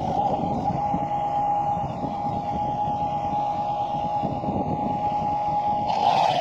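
An engine running steadily, with one constant high whine over a dense low rumble.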